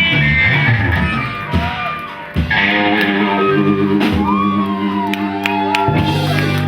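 Live band with guitar playing the closing bars of a tune, holding a long chord through the middle, then a final hit near the end.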